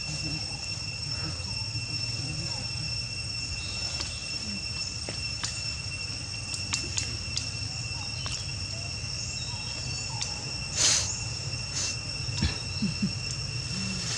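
Insects in the trees making a steady, unbroken high-pitched drone over a low rumble. A few brief clicks, and one short, louder burst of noise about eleven seconds in.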